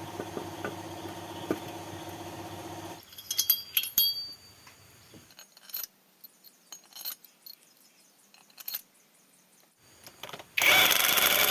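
Metal engine parts and hand tools clinking and knocking on a workbench. A steady machine hum stops about three seconds in, and a loud rushing hiss lasts about a second near the end.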